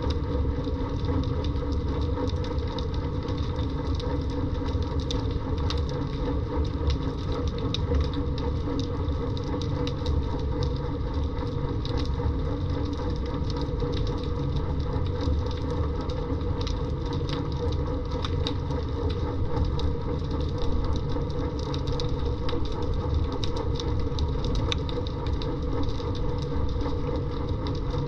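Underwater ambience picked up by a submerged camera: a steady low rumble with many faint scattered clicks.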